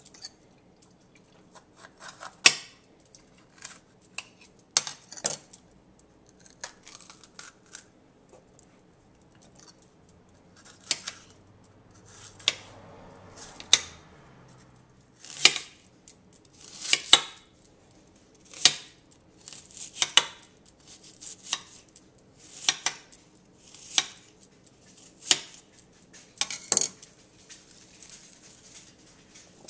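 Kitchen knife cutting a green bell pepper and an onion on a cutting board: sharp knocks of the blade hitting the board, irregular at first, then a steady stroke about every second and a half.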